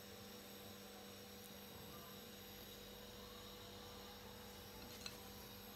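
Faint steady electrical hum over low room tone, with one faint click about five seconds in.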